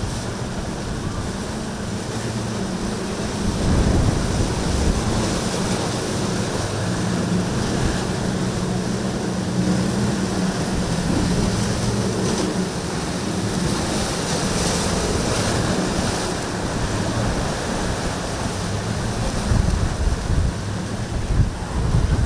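Surf and choppy water rushing and breaking, with wind buffeting the microphone, under the steady hum of a Regal 38 cruiser's outboard engines running at speed through the waves.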